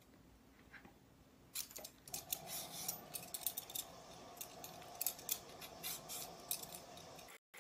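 Vegetable peeler scraping the skin off an unripe green mango in short, irregular strokes, starting about a second and a half in.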